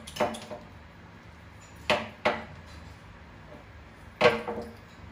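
Sharp knocks and clatters of kitchen things handled at a stainless-steel sink, each with a short ringing: two near the start, two about two seconds in, and the loudest a little past four seconds.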